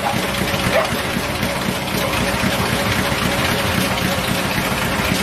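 Weslo Cadence treadmill running steadily under a trotting dog, the motor and belt noise mixed with the dog's feet striking the belt.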